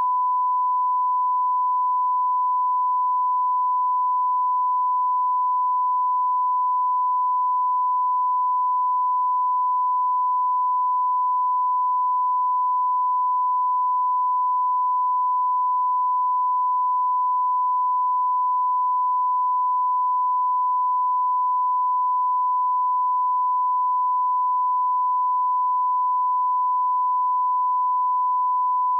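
Broadcast line-up tone: a single steady 1 kHz sine tone held at constant level without a break, the reference tone that accompanies television colour bars for setting audio levels.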